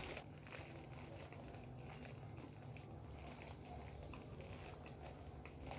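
Faint crinkling of a snack packet and small scattered clicks over a low steady hum.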